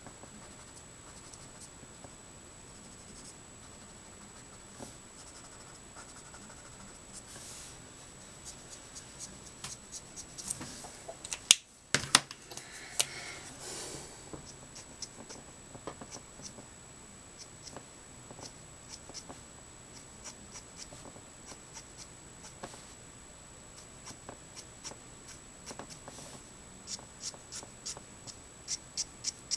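Alcohol marker nib (Letraset Promarker) rubbing and dabbing on card in short strokes, busiest near the middle and near the end, with two sharp clicks about halfway through.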